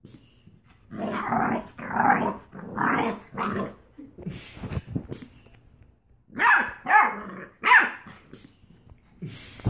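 Pit bull puppy barking in play, a run of four barks about a second apart, a short lull, then three more.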